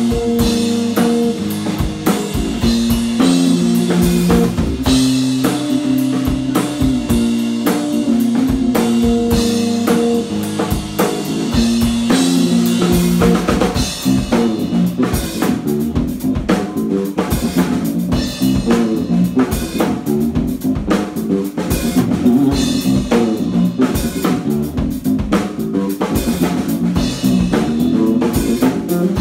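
Electric bass played through a Hartke amp, with a drum kit, in a live instrumental bass-and-drums duo. Long held bass notes sit over the drums in the first half, and from about halfway the playing turns busier, with quicker note changes and denser drumming.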